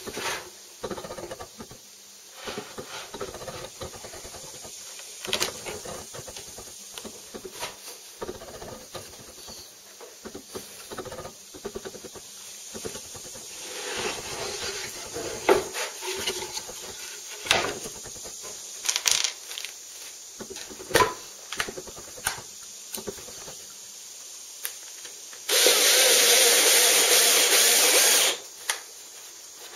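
Scattered knocks and clatter of wood and tools being handled on a table saw top. Near the end a cordless drill runs steadily for about three seconds, drilling into the runner of a plywood crosscut sled.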